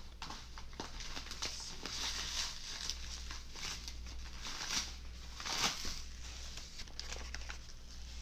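Plastic wrapping and bubble wrap crinkling and tearing as a wrapped package is cut open with a knife. The crackles are irregular, with a few louder bursts about two, five and five and a half seconds in.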